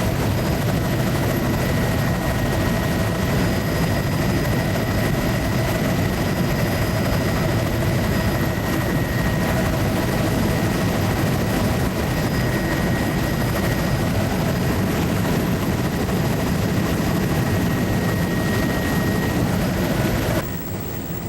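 Steady drone of a low-flying survey aircraft's engine and rotor or propeller, heard from inside the aircraft. It steps down somewhat in level just before the end.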